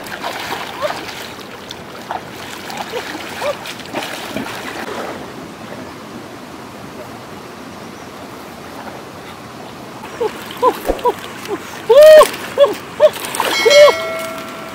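Water splashing and sloshing as hands search the muddy shallows for shells. In the last few seconds, an animal gives a run of loud, short, rising-and-falling calls, with one longer held call near the end.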